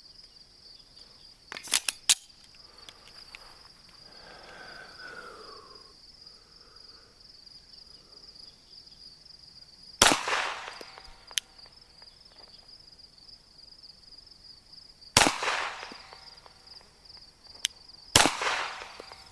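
Three single shots from a 9mm Glock 34 pistol, fired slowly and one at a time, the first about ten seconds in and the last two about three seconds apart, each a sharp crack with a short echo.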